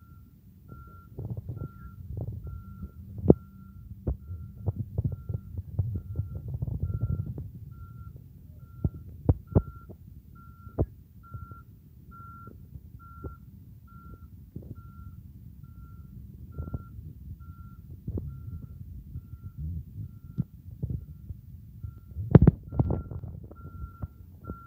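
An electronic beeper repeating one high tone, about three short beeps every two seconds, like a vehicle's reversing alarm. Under it runs a low rumble, with a few sharp knocks; the loudest come a little after three seconds in and near the end.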